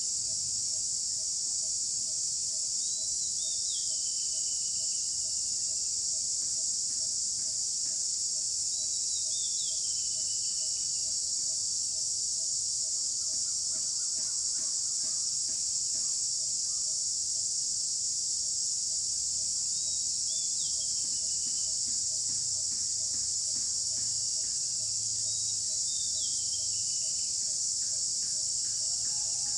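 Steady high-pitched insect chorus, with a bird giving a short falling call every few seconds and a low note pulsing about twice a second underneath.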